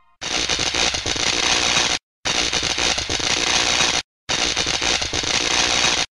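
Loud hissing static, like a dead TV channel, in three blocks of about two seconds each, broken by brief silent gaps about two and four seconds in.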